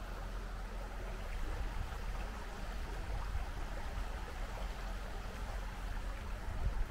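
Steady outdoor background noise: an even rushing sound over a low rumble, with no distinct events.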